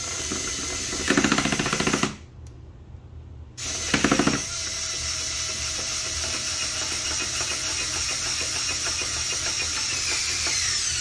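Power drill/driver running as it drives a screw into wood, in a short run, a pause, then a long run of about eight seconds, with rapid rattling clicks about a second in and again about four seconds in. The screw is spinning without biting the wood.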